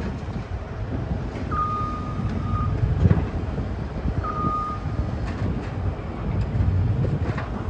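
Kobelco ED160-7 excavator's diesel engine running under hydraulic load as the arm and bucket move, with a knock about three seconds in. An electronic beep sounds twice over it, the first about a second long, the second shorter.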